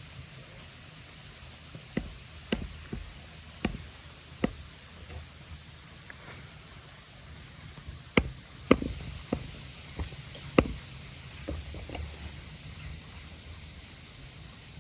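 Woodland quiet with a faint steady insect chorus, broken by a dozen or so sharp snaps and knocks at irregular intervals, loudest in the middle of the stretch.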